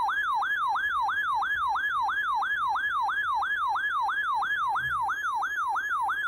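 Electronic siren-like alert tone: a rapid yelp whose pitch falls and snaps back up about four times a second, held loud and steady.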